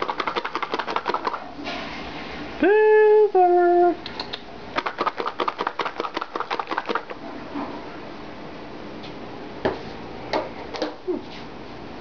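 Cat treat container shaken, its treats rattling in quick runs of about ten shakes a second near the start and again from about five to seven seconds. Between the runs comes a loud two-note call, the second note a little lower, and a few single rattles follow near the end.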